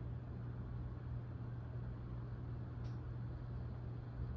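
Steady low hum with a haze of room noise, and one faint click about three seconds in.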